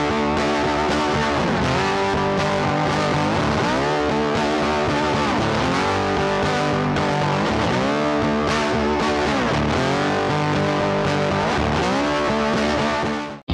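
Background music led by guitar, with notes that slide up and down in pitch. It cuts off abruptly just before the end.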